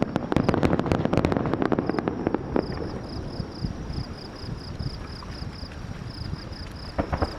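Fireworks crackling in a dense run of sharp pops that thins out and stops after about two or three seconds, with a couple more pops near the end. Insects chirp in a steady, high-pitched rhythm of about four pulses a second throughout.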